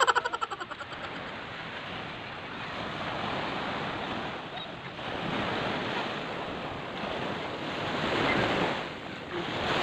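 Small sea waves breaking and washing up on a sandy beach, the surf rising and falling as each wave comes in, with wind buffeting the microphone. A man's short loud shout right at the start.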